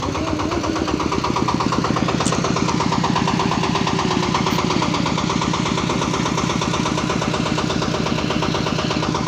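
Motorcycle engine running steadily with rapid, even pulses. It grows a little louder in the first second or so, then holds.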